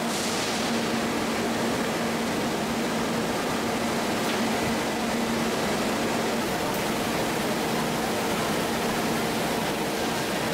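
Steady running noise of LPG cylinder production-line machinery: an even hiss with a constant low hum underneath.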